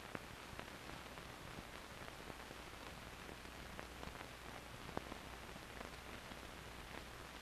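Faint steady hiss with scattered clicks and pops and a low hum underneath: the surface noise of an old 16mm film soundtrack with no narration or effects on it.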